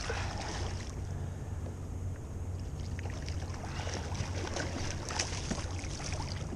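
A hooked striped bass splashing and thrashing at the surface as it is played to the side of a kayak, in a series of short irregular splashes over a steady low rumble.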